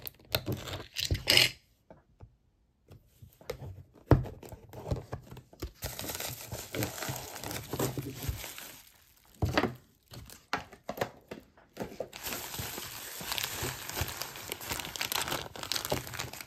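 Packing material being crinkled and torn open by hand, in two long stretches of rustling with a few sharp knocks in between.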